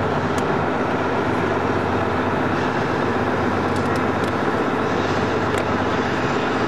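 Steady engine and road noise from a moving tour bus, heard from inside, with a low hum and no let-up.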